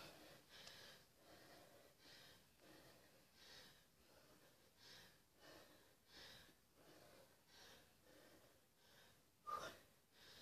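A woman breathing hard and rhythmically during press-ups, a soft breath in or out about every half to three-quarters of a second. There is a short, louder breath near the end.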